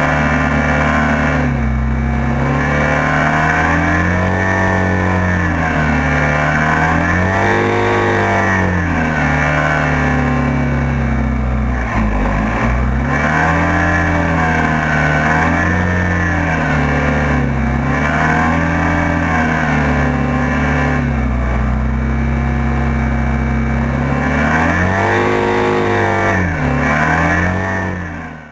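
Hovercraft engine running at speed, its pitch rising and falling every two to three seconds as the throttle is worked. It fades out near the end.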